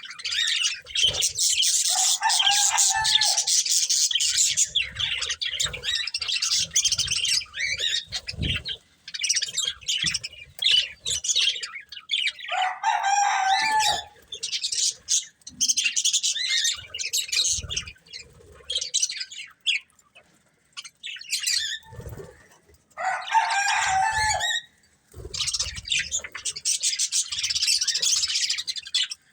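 Budgerigars chattering and warbling almost without a break, with a few louder, harsher calls lower in pitch and occasional soft low thumps.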